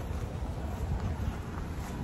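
Low rumble of a car approaching on the road, growing slightly louder, with wind buffeting the microphone.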